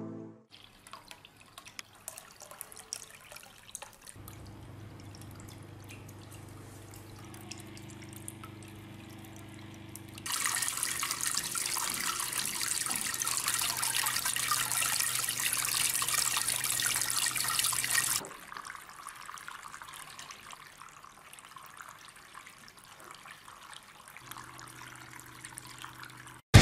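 Water trickling and splashing from small tabletop bamboo fountains. About ten seconds in, the splashing becomes much louder for about eight seconds, then falls back to a soft trickle, with a faint low hum under the quieter parts.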